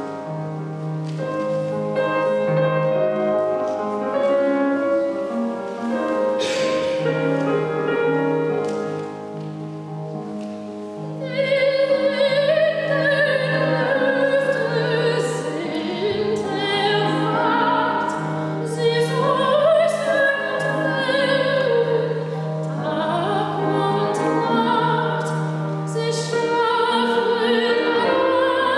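A grand piano plays a classical introduction. About eleven seconds in, a woman begins singing in a trained operatic voice with vibrato, accompanied by the piano.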